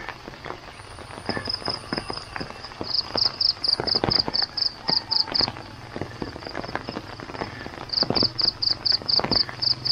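Footsteps walking outdoors, irregular soft knocks, while an insect chirps in rapid pulses, about six a second, in bursts that stop and start, loudest near the end.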